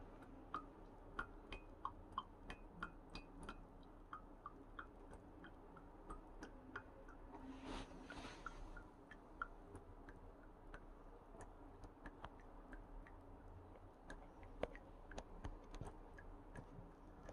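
Brewed coffee dripping from a drip filter into a nearly full mug. Each drop lands as a small, pitched plink, coming irregularly at up to about three a second and thinning out later, with a brief soft hiss about halfway through.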